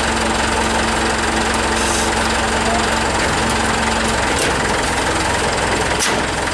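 Forklift engine running steadily while its mast lifts a combine's grain tank; a steady tone in the running sound drops out about four seconds in.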